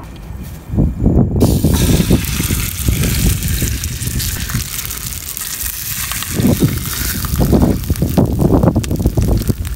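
A marinated fish fillet (kahawai) sizzling on a hot stainless steel camping plate over a wood fire. The hiss starts sharply about a second in and holds, with uneven low rumbling swells under it.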